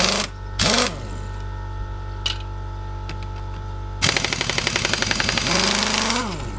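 Air impact gun hammering on a 17 mm wheel bolt: a short burst about half a second in, then a longer burst of about two seconds that ends with the gun spinning freely and winding down as the bolt comes loose. A steady hum runs underneath.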